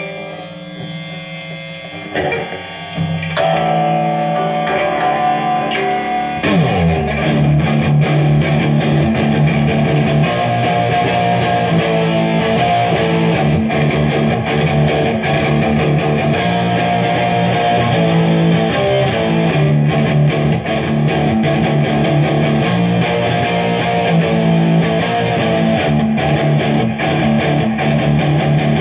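Electric guitar playing: held notes at first, then about six seconds in a downward slide leads into fuller, continuous playing.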